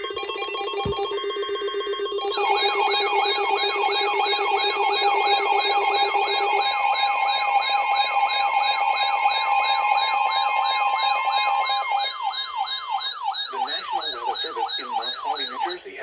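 Several weather alert radios sounding their alarms together for a tornado warning. A steady alert tone with pulsing beeps is joined about two seconds in by a siren-style alarm that sweeps down in pitch over and over, about two and a half times a second, with a fast warble above it. The steady tone stops near the end while the sweeping alarm carries on.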